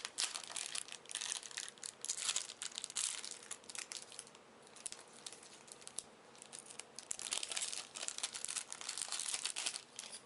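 A foil trading-card booster pack being torn open and crinkled by hand, with bursts of crackling in the first few seconds and again in the last few.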